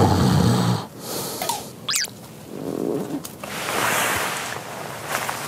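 A person snoring: one loud, deep snore at the start. It is followed by a couple of short, high sweeping chirps and some breathy noise.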